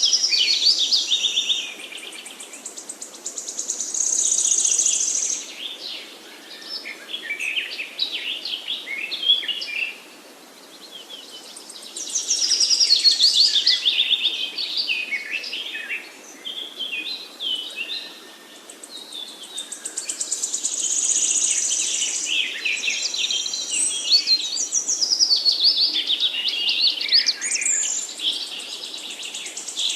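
Forest songbirds singing in phrases a few seconds long with short pauses between them, made of fast trills and quick runs of high, repeated notes.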